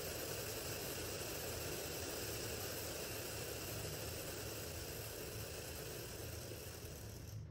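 Oat Foundry split-flap display with many flaps flipping at once, a dense, continuous clatter that cuts off suddenly near the end as the flaps come to rest on a new message.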